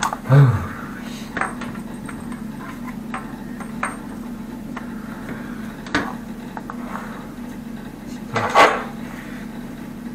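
Intermittent sharp metallic clinks and knocks of tools against a water-supply pipe fitting in the wall, a few spread across the time, the loudest about eight and a half seconds in, over a steady low hum.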